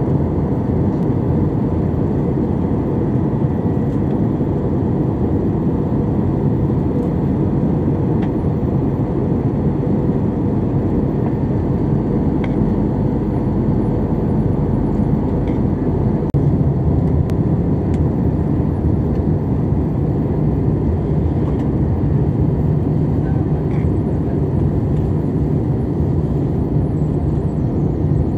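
Steady cabin noise inside an Airbus A320 during descent: the low rumble of the engines and the air rushing past the fuselage. A little past halfway the low rumble shifts slightly.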